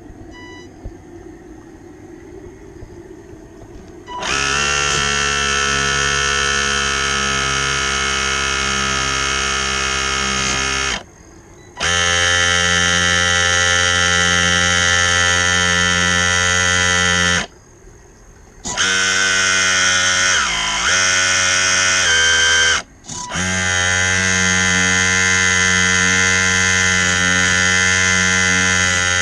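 Electric drive of an RC Ford GPA model running with a loud, steady buzz that starts about four seconds in. It cuts out briefly twice and dips in pitch once before picking back up.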